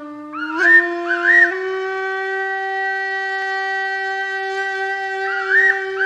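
Background music: a woodwind instrument holding a long, steady note that steps up in pitch about a second and a half in, with short ornamental flourishes above it near the start and again near the end.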